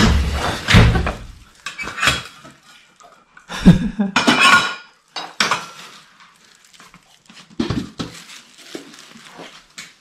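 A metal steamer pot, its tray and lid clanking and scraping as they are handled and set onto a small stove. The clatter comes in several separate bouts, loudest at the start and about four seconds in.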